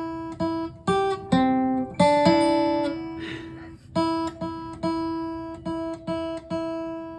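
Acoustic guitar picked one note at a time in a slow, simple melody, about two notes a second, each note ringing and fading, played by a beginner.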